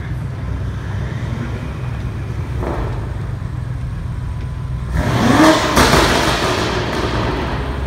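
Tuned BMW M5 Competition's twin-turbo V8 running at low speed, given a short rev about five seconds in, with a single sharp crack near the peak of the rev.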